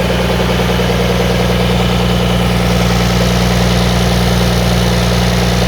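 Freshly rebuilt diesel engine running at a steady idle on its run-in test after the rebuild.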